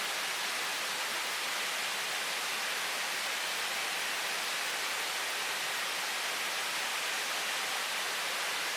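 Waterfalls rushing: a steady, noisy, even wash of falling water that does not change.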